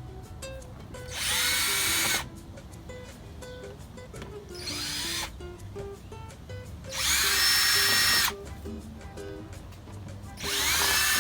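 Power drill driving screws to mount a plastic front lip on a Mazda Miata's bumper, run in four short bursts, each spinning up to a steady whine; the third burst is the longest and loudest.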